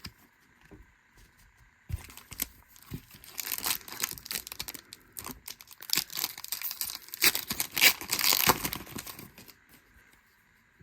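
Baseball card pack wrapper being torn open and crinkled. It starts suddenly about two seconds in, builds to its loudest crackling toward the middle and stops shortly before the end.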